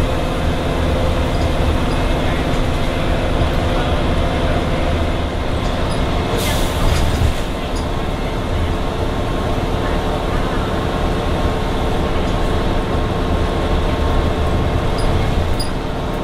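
Volvo Olympian double-decker bus under way, heard from inside the lower deck: its engine and Voith automatic gearbox running steadily under road noise. A short hiss comes about six and a half seconds in.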